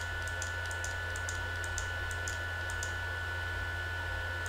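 Computer mouse button clicking, about a dozen light clicks at an uneven pace, as the left mouse button is pressed for each brush stroke. A steady electrical hum runs underneath.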